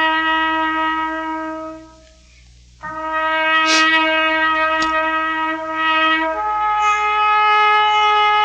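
A trumpet playing slow, long held notes. It breaks off briefly about two seconds in and moves up to a higher note near the end.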